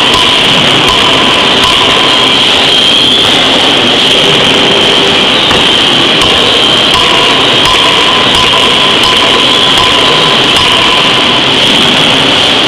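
Loud, steady industrial noise from a working forging hammer and its drive machinery, with a high whine running through it and a few faint light knocks; no heavy blows stand out.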